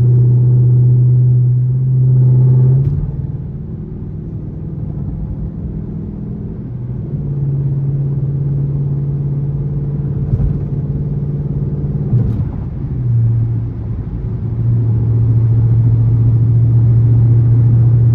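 Dodge Charger R/T's 5.7-litre Hemi V8 droning through a catless, gutted exhaust while cruising, heard from inside the cabin. The steady drone fades about three seconds in, comes back a few seconds later, dips again briefly past the twelve-second mark, then holds steady.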